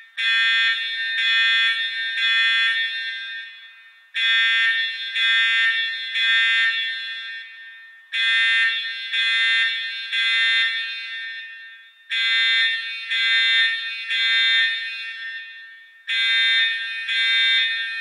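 Emergency alarm buzzer sounding groups of three high, buzzing beeps, one group every four seconds, each group fading away in a long echo. Three beeps then a pause is the standard temporal-three pattern of a fire evacuation alarm.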